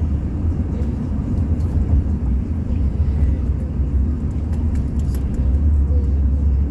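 A steady low rumble, with faint, scattered clicks of a Rubik's Cube's layers being turned during a one-handed solve.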